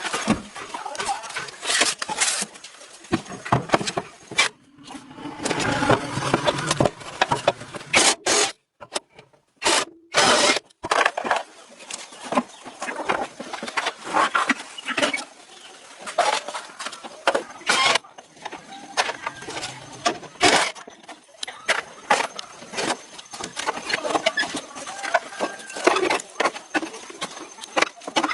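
Hand-tool work on a car during restoration: irregular scraping, rubbing and sharp knocks, broken by several abrupt cuts.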